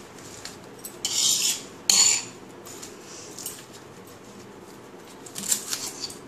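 Kharkol leaves rustling as they are gathered, and a sharp clack on the stone counter about two seconds in. Near the end comes a quick run of knife strokes slicing the leaves against the granite.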